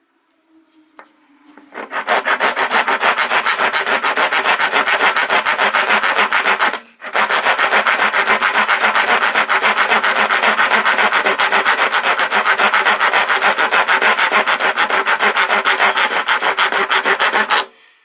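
Coarse-cut steel half-round woodworking rasp filing wood in rapid, steady back-and-forth strokes. The rasping pauses briefly about seven seconds in, then resumes.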